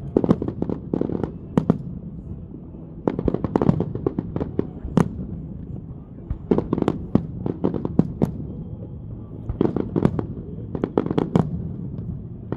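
Aerial fireworks bursting in rapid volleys of sharp bangs and crackles, in clusters every few seconds with a steady rumble between.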